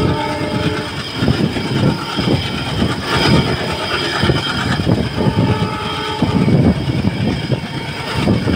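Diesel locomotive working hard as it accelerates a passenger train, heard from an open coach window behind it, with the coach wheels clattering over the track.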